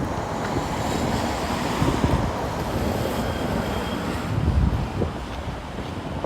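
Wind buffeting the phone's microphone in low rumbling gusts, with a broader rushing hiss that swells over the first second and fades by about four and a half seconds in.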